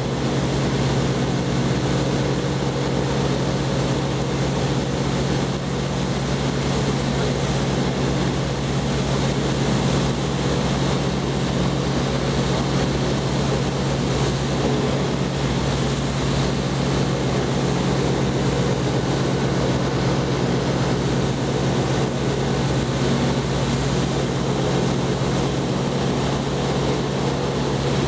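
Light aircraft's piston engine and propeller running steadily in cruise, heard from inside the cockpit as a constant low hum over a rush of air noise.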